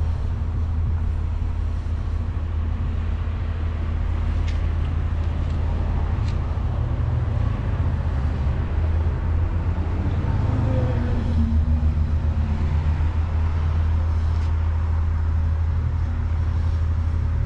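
A steady low rumble and hum with a faint hiss above it.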